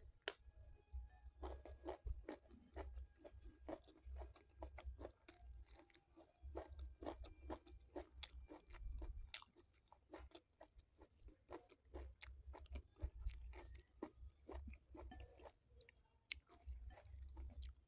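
Faint, close-miked chewing of a hand-fed mouthful of nasi tiwul (steamed cassava rice): many small wet clicks and smacks from the mouth, with a low rumble coming and going underneath.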